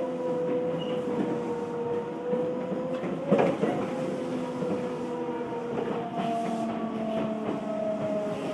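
Odakyu 1000-series electric train heard from inside the car: a steady electric motor whine over wheel-on-rail rumble. There is a single clunk about three seconds in, and the whine steps up in pitch about six seconds in.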